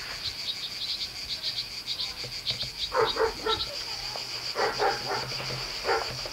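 Cicadas buzzing in a high-pitched drone, pulsing at first and then steady, with a few short louder sounds around the middle.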